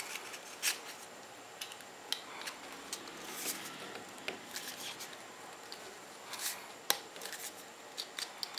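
A pack of three cable-tied lithium-ion cells pushed into a PVC pipe, its plastic wraps scraping and clicking against the inside of the pipe. The clicks are faint and irregular, a few louder ones among them and more frequent near the end.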